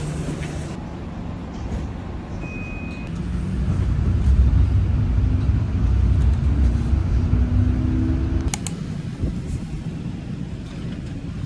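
Low rumble of a road vehicle, swelling about four seconds in, with a faint motor tone slowly rising in pitch, then fading near the end.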